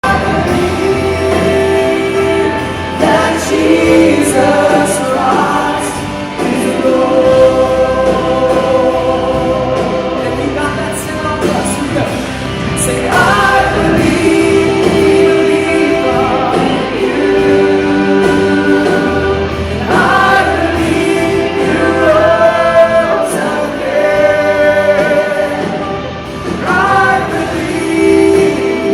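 Worship music in church: a group of singers with an accompanying band, singing held notes over a steady bass line.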